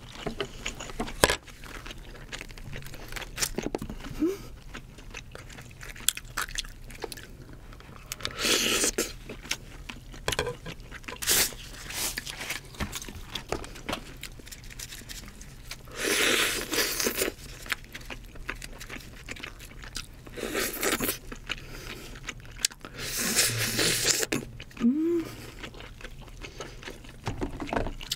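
Close-miked eating of king crab: chewing and biting the leg meat, with crunching and scraping as meat and shell are handled, coming in several short bursts.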